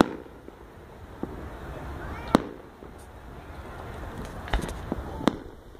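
Aerial firework shells bursting in a series of sharp bangs: one at the start, another a little over two seconds in, and two more close together near the end.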